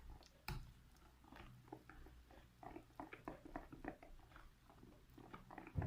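Thin semolina basbousa batter being stirred in a bowl: faint, irregular wet clicks and squelches a few times a second, with a soft knock against the bowl near the start and again near the end.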